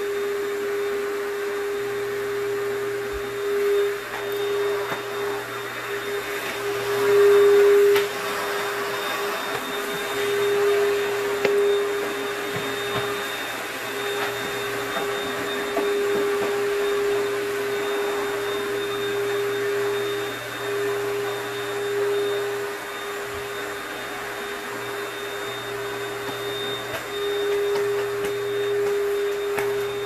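Vacuum cleaner motor running steadily with a constant hum, briefly louder about eight seconds in.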